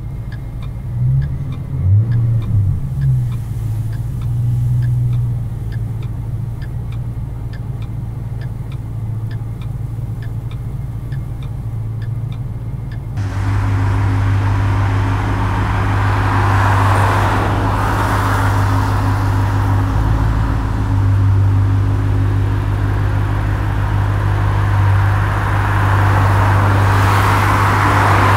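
Car engine heard from inside the cabin, idling with a couple of brief revs near the start, and a light regular ticking about twice a second. About halfway through, the sound changes abruptly to the car driving: louder steady engine hum with tyre and road noise.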